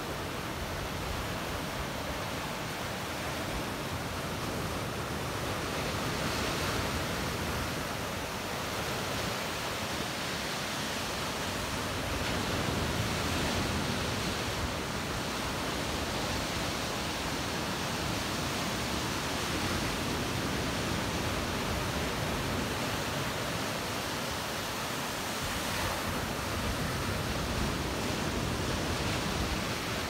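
Small sea waves breaking and washing over rocks at the shoreline: a steady hiss of surf that swells a little every few seconds.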